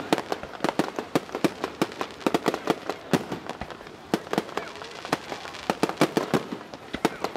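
Aerial fireworks bursting in a rapid, irregular string of sharp bangs and pops, several a second.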